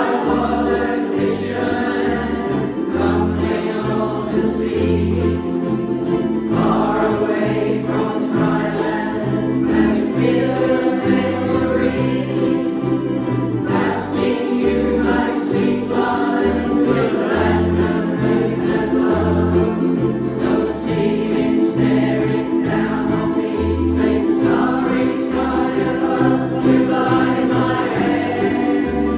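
A band playing live, several voices singing together over strummed strings and a bass line that steps from note to note.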